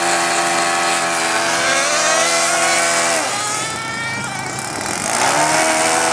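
Small nitro model engine running at a fast steady pitch, then revving up and falling away sharply about three seconds in; it revs up again near the end.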